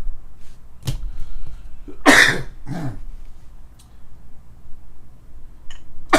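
A man coughs about two seconds in, then gives a second, smaller cough right after. A sharp click comes about a second before.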